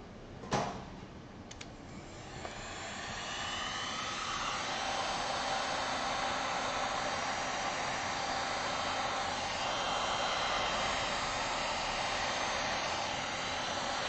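A sharp click about half a second in, then a heat gun's fan blowing with a steady rush of air that builds up over the first couple of seconds and holds.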